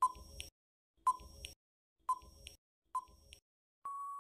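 Quiz countdown-timer sound effect: short beeps about once a second, then a longer steady beep near the end that signals time is up before the answer is given.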